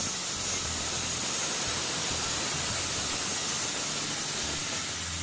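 DeWalt circular saw running steadily with an even noise while its spinning blade is plunged down into a board, cutting a slot for the blade to sit in.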